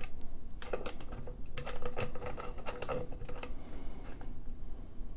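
Irregular small clicks, knocks and scrapes of hand tools turning and gripping a Noveske flush QD sling mount as it is snugged tight into a fixed AR-15 buttstock, with a brief hiss about four seconds in.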